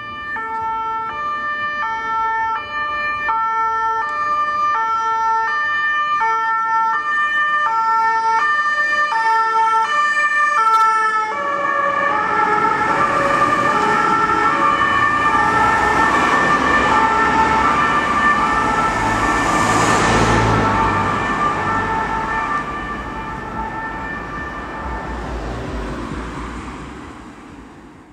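Emergency vehicles' two-tone sirens alternating between a high and a low note, switching about once a second. About 11 seconds in, a second two-tone horn at different pitches overlaps the first. The vehicles pass loudly around two-thirds of the way through, then the sirens fade away.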